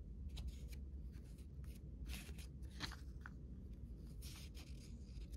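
Thin paper pages of a small old pocket book being turned by hand: several soft, separate rustles and flicks of paper, over a faint steady low hum.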